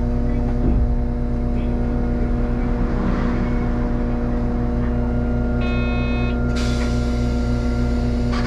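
Hakodate city tram standing at a stop, heard from inside the car: a steady electrical hum with a regular throb underneath. About six seconds in there is a short electronic beep, followed by a hiss lasting about two seconds.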